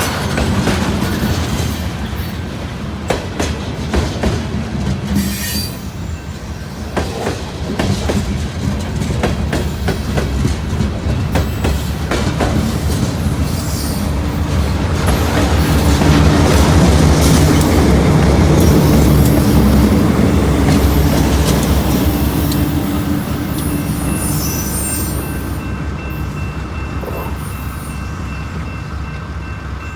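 Diesel freight train rolling past, the locomotive engines running under the rhythmic clack of wheels over rail joints, with some wheel squeal. It grows loudest around the middle, then fades as the train moves away.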